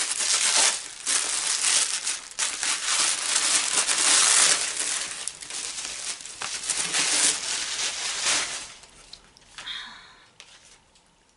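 Gift wrapping and tissue paper being torn and crumpled by hand: a busy run of rustling, crinkling and ripping that fades away about three-quarters of the way through.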